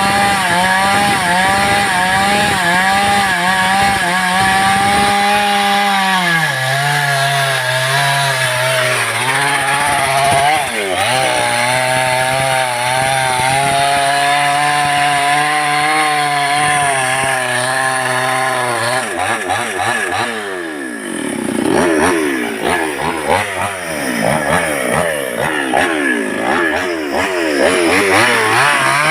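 Two-stroke Stihl-replica chainsaw with a 24-inch guide bar, running at high revs while sawing lumber. Its pitch drops about six seconds in as the bar takes the load of the cut. Around twenty seconds in the revs fall away sharply, then rise and fall unevenly.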